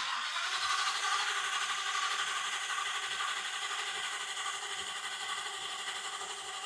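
Starter cranking a Ford F-59's 6.8-litre gasoline V10 with the accelerator floored, so the engine turns over without starting: a relative compression test on the cylinder 4 misfire. The cranking is steady and fades slowly.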